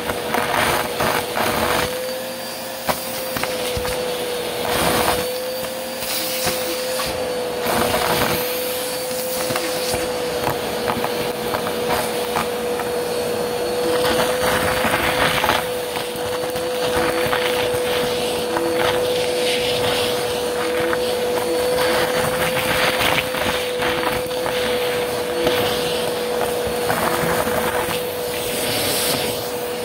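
Bagless upright vacuum cleaner running with a steady whine, its crevice tool sucking up a pile of confetti and sequins from carpet. Irregular crackling rattles come through as the pieces are drawn up the hose.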